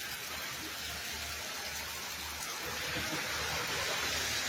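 Steady rushing noise of a flooded creek running high under a bridge, growing slightly louder about three seconds in.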